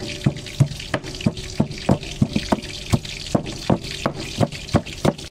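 Pestle pounding a wet mash of chilies, garlic and sugar in a stone mortar: steady, even thuds about three times a second.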